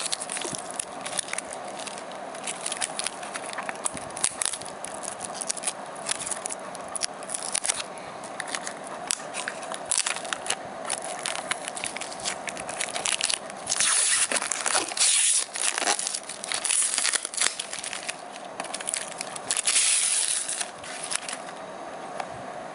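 Thin plastic packaging crinkling and crackling as it is handled and pulled off the drive by hand. The crackling is loudest in two stretches, about 14 seconds in and again about 20 seconds in.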